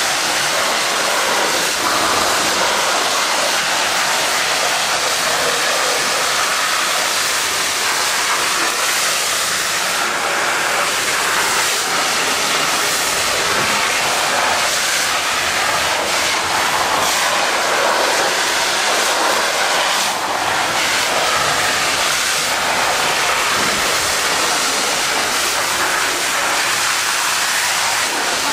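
Water jet from an Akron severe-duty monitor spraying steadily and striking a bulldozer's mud-caked steel tracks: a continuous loud hiss of high-pressure water and spray.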